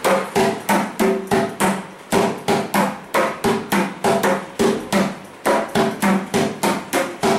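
Mridangam being played: a steady run of ringing drum strokes, about four a second.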